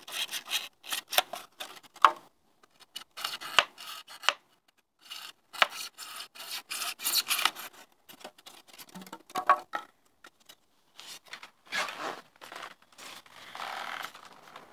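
A hand-held hacksaw blade sawing through expanded polystyrene foam: quick scratchy back-and-forth strokes in bursts with short pauses, ending in a longer, steadier scrape.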